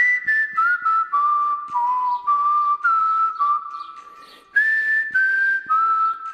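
Background music carried by a whistled melody that steps from note to note in short phrases, over light percussion.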